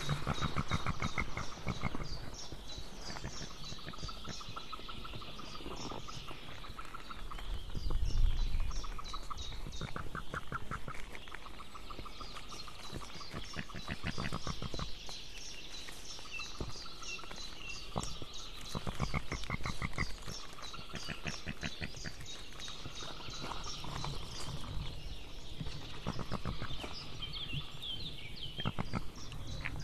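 White-tailed eagle chicks calling: rapid chittering series of high, repeated notes, again and again. There is a brief low rumble about eight seconds in.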